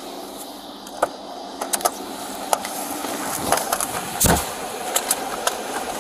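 Steady background noise inside a patrol car, with scattered sharp clicks and knocks and one louder thump about four seconds in.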